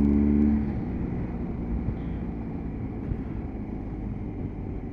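A motorcycle riding at road speed, heard from the rider's seat: its engine note is steady, then drops away under a second in. Wind and road noise then carry on as the bike slows.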